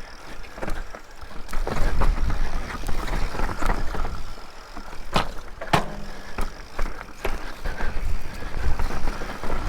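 Mountain bike riding over a rough, rutted dirt trail: steady tyre and rumbling noise with frequent rattles and clacks over bumps, two of them sharp and loud about five seconds in.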